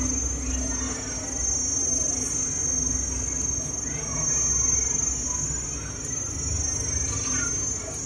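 Steady high-pitched insect drone, with a low rumble underneath.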